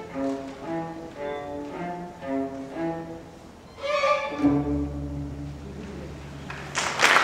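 String orchestra of violins, cellos and double basses playing the closing bars of a piece: a repeated pattern of short notes, a louder flourish about four seconds in, then a final chord held low in the strings for about two seconds. Applause breaks out right at the end.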